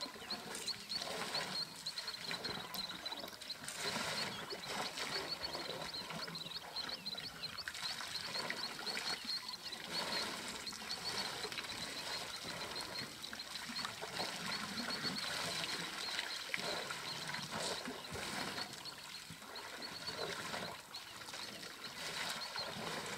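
African elephants drinking at a waterhole: water splashing and trickling as they draw it up in their trunks and squirt it into their mouths. A rapid, high chirping runs steadily underneath.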